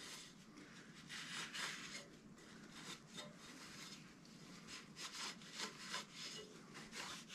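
Cloth rag rubbing along a metal inline skate frame as it is wiped clean: faint, irregular scrubbing swishes.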